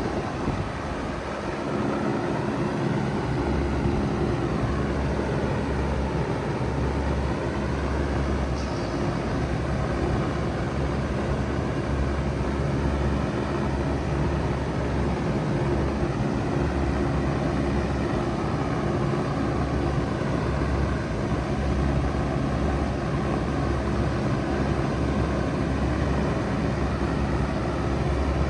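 2006 Bard 3-ton wall-hung heat pump running in cooling mode: a steady mechanical hum with fan noise over it, holding level throughout.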